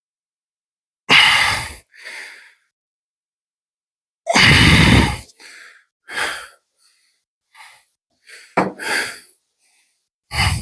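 A man breathing heavily, a string of loud, gusty breaths with silent gaps between them; the longest and loudest comes about four seconds in. He is winded from cardio exercise.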